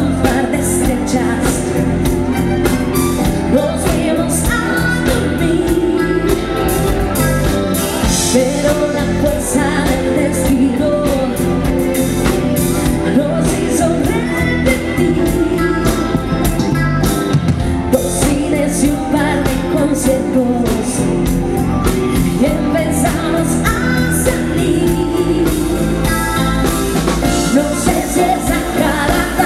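Live pop-rock band playing: a woman singing lead over electric guitar, electric bass, keyboard and drum kit, amplified through the stage speakers.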